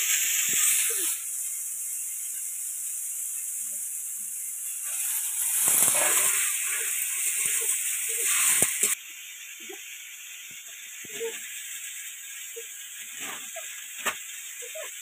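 Frying in a metal kadai over a wood fire: steady sizzling, with a metal ladle scraping and clinking as the leaves are stirred. The sizzle is loud for about the first nine seconds, with heavier bursts in the middle. It then drops sharply to a quieter sizzle broken by scattered scrapes and taps.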